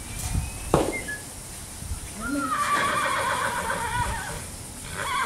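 A horse whinnying once: one long, wavering call of about two and a half seconds, starting about two seconds in. A sharp knock comes shortly before it.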